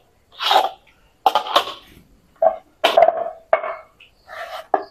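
Hands working portions of rice-flour dough: about eight short rustling, scraping strokes, each under half a second, with brief pauses between them.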